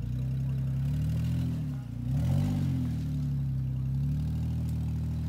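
Jeep Wrangler engine revving under load as it crawls over rocks, the pitch rising and falling twice, then holding steady.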